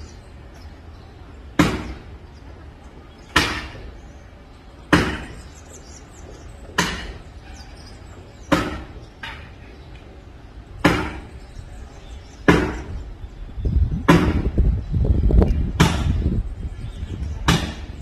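An axe chopping wood: sharp, single chops at a steady pace of about one every second and a half to two seconds, about ten in all. A low rumbling noise swells behind the chops for a few seconds in the second half.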